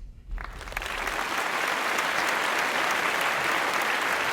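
Audience applause, rising within the first second and then steady, without a break.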